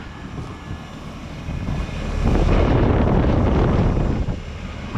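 Air-conditioning condensing units running with a steady low hum. A loud rush of air on the microphone swells up about two seconds in and fades after about two more seconds.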